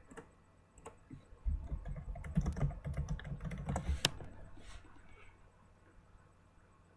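Typing on a computer keyboard: a quick run of key taps, ending in a sharper click about four seconds in.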